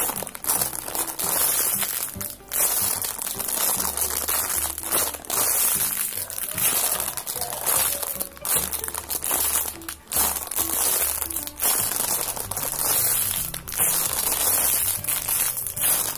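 Clear plastic bag crinkling in repeated bursts as a foam squishy inside it is squeezed by hand, over background music with a stepping bass line.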